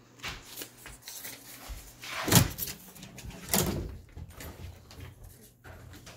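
An apartment door being opened, with handle and latch clatter. Two loud knocks stand out, about two and a half seconds in and again about a second later, among smaller clicks.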